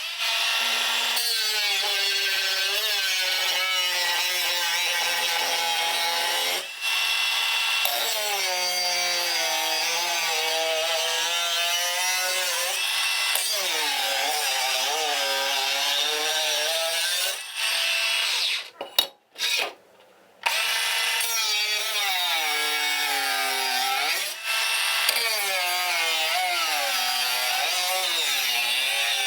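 A power tool running under load, likely at a knife-making bench, its motor pitch sagging and recovering again and again as work is pressed against it, with a harsh grinding hiss on top. The sound drops out briefly a few times, about a second each near the middle and near the end.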